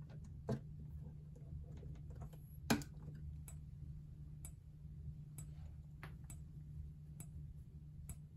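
Gentex GX90S fire-alarm strobe ticking with each flash, about once a second, over a steady low hum. There is a louder knock early on and another, stronger one a little under three seconds in.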